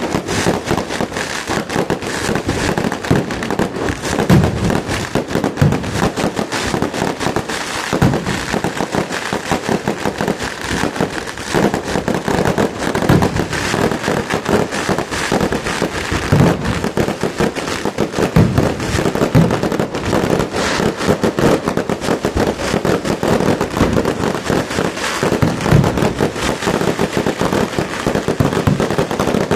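Fireworks display: a continuous, dense crackle of popping firecrackers, with louder, deeper booms every few seconds.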